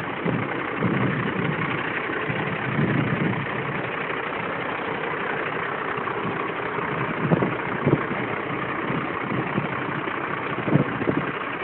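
A motor vehicle's engine idling steadily, with a few short knocks around the middle and near the end.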